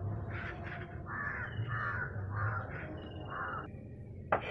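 A crow cawing repeatedly, about five caws roughly half a second apart, over a low steady rumble. A single sharp knock near the end.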